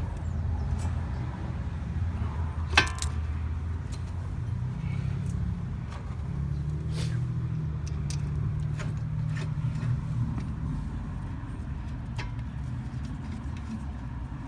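Low steady vehicle hum throughout, under scattered metallic clicks and one sharp clack about three seconds in, as front disc brake caliper parts are handled and refitted.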